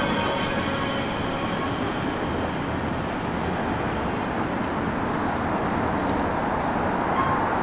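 New York City Subway R160 train running along elevated steel track, a steady rush of wheels on rails. A faint whine fades out in the first second or so.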